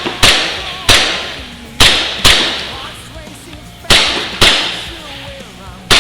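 Airsoft guns firing single shots: sharp cracks that ring out briefly, about seven at irregular intervals, some in quick pairs.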